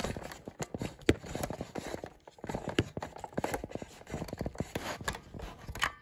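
Hex wrench turning the reset screw of a Fire-Lite BG-10 manual pull station: a run of irregular small clicks and scrapes as the screw is worked back in.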